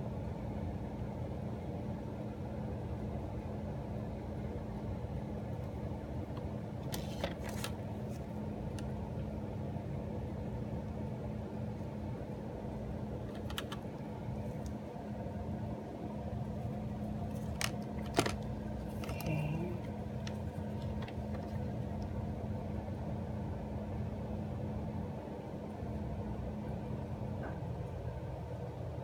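Steady low hum of a room's air-conditioning unit, its tone dropping out near the end, with a few light clicks and taps.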